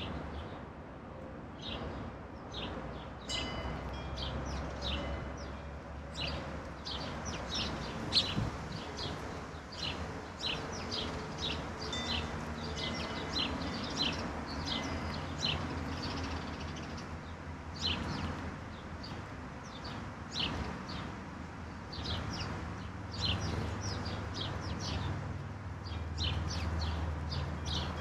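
Several wild songbirds chirping and calling: a dense run of short, sharp chirps that goes on throughout, over a low steady rumble.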